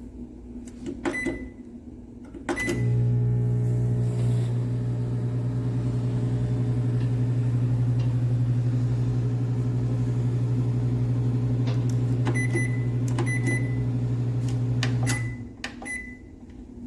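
Galanz retro microwave oven: keypad beeps, then the oven runs with a loud steady low hum for about twelve seconds. Near the end there are a few more beeps, the hum cuts off, and two final beeps follow.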